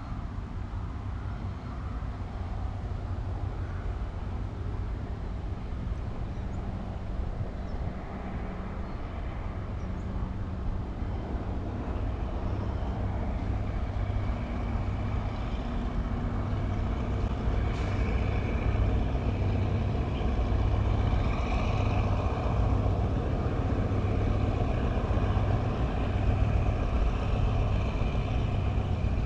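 GE diesel-electric locomotive approaching from a distance, its engine rumble growing gradually louder, with faint high tones joining from about halfway through.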